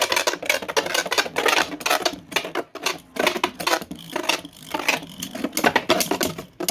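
Two 3D-printed Beyblade spinning tops battling in a plastic stadium: rapid, irregular plastic-on-plastic clacking with sharp hits as they collide and scrape.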